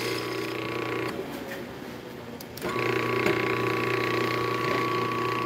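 Electric espresso grinder's motor running with a steady hum as it grinds grinder-cleaning tablets through the burrs. It stops after about a second and starts again about a second and a half later.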